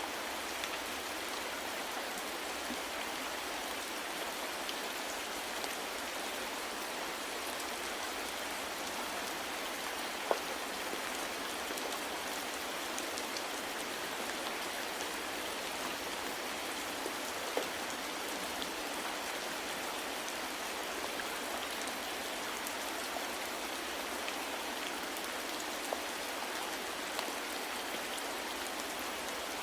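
Steady soft rain falling, an even hiss of many drops, with a few single louder drop hits standing out, the clearest about a third of the way in and just past halfway.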